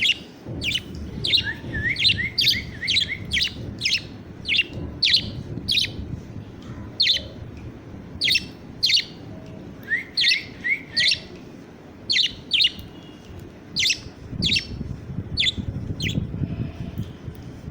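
Budgerigar chick chirping: a long series of sharp, short falling chirps, with two runs of quick rising notes, a couple of seconds in and again about ten seconds in.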